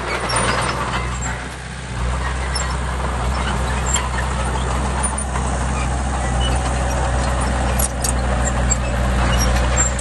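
Construction machine's diesel engine running steadily. Its low note drops away for a moment near the start and comes back strong about two seconds in, with a few light clicks later on.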